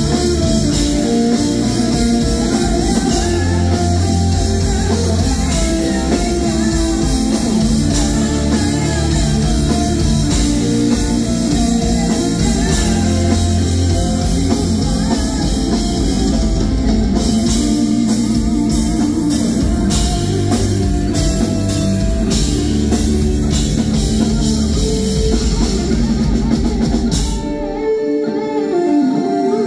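Live hard rock band playing: distorted electric guitars, drum kit and bass with a female singer. Near the end the drums and bass drop out, leaving the lead electric guitar on its own.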